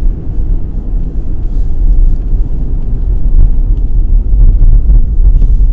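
Infiniti FX35 setting off, heard from inside the cabin: a steady low rumble of its 3.5-litre V6 and the road, growing a little louder about three seconds in.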